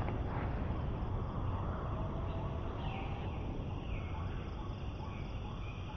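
Outdoor forest ambience: a steady low rushing noise with a few birds calling over it.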